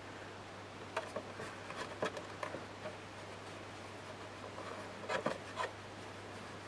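Fingernail rubbing and pressing along a paper fold over thin chipboard, making short scratchy scrapes of paper, a cluster in the first couple of seconds and another about five seconds in.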